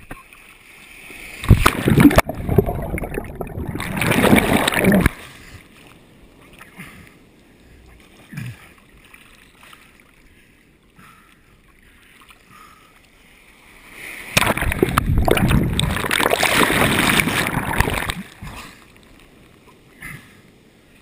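Breaking surf and whitewater rushing over a waterproof action camera, loud in two stretches of a few seconds each, with faint water sounds between them.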